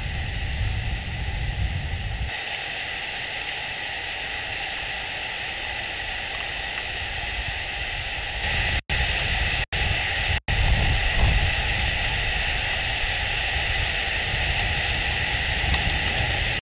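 Steady storm noise of rain and wind on an outdoor nest camera's microphone, with a faint steady hum. The sound cuts out briefly three times between about nine and ten and a half seconds in.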